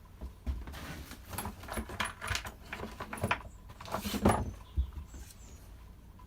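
Irregular light clicks, taps and rattles of parts and tools being handled during reassembly of a strimmer's engine casing, the loudest knock about four seconds in.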